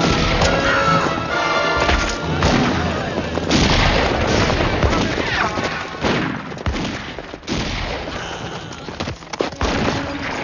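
Orchestral film score under a battle sound mix: repeated gunshots and booms over galloping horses.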